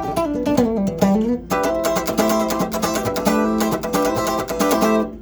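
PRS SE Custom 24 electric guitar played clean, straight into a mixer with no effects, on its bridge humbucker coil-split with the push-pull knob: a picked run of single notes, then strummed chords from about a second and a half in, stopping just before the end.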